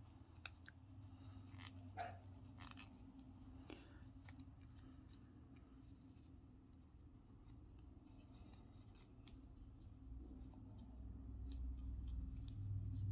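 Faint handling noise of hands working yarn with a metal crochet hook and plastic stitch marker: scattered small clicks and rustles. A low hum grows louder near the end.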